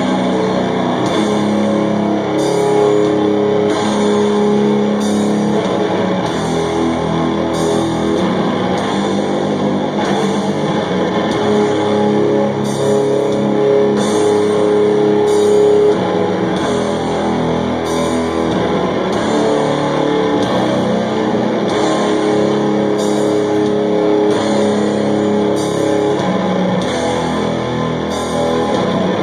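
Doom metal band playing live: slow, heavy distorted guitar chords held for several seconds each over bass, with cymbals struck at a slow, steady pace.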